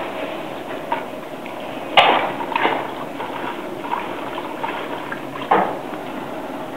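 Irregular metal clanks and knocks from blacksmithing work, about five in all, the loudest about two seconds in, over a steady rushing background.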